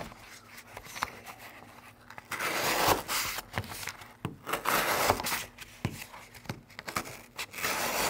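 Folding knife blade sawing through triple-folded corrugated cardboard: scraping, tearing strokes with small clicks, in several pushes.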